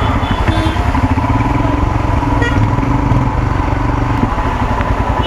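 Royal Enfield Himalayan's single-cylinder engine running at low speed as the motorcycle rolls in slowly, with its note changing about four seconds in as the rider eases off.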